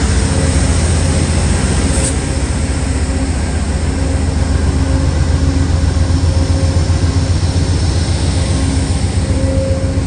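Steady low drone and hum of an Amtrak train, with a brief tick about two seconds in.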